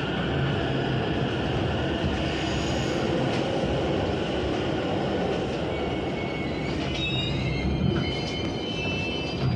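Interior running noise of a commuter train slowing into a station, a steady rumble from the wheels and car. From about seven seconds in, high squealing tones join it as the train brakes toward a stop.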